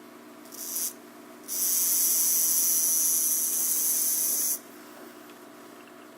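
Yearling black-tailed rattlesnake shaking its rattle, a defensive warning: a short buzz about half a second in, then a steady high buzz for about three seconds that cuts off suddenly.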